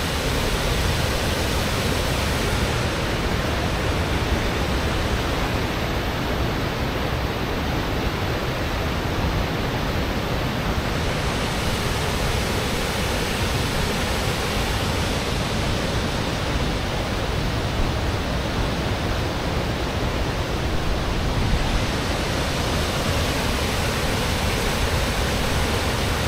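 Mill Falls waterfall rushing in a steady, unbroken roar of falling water.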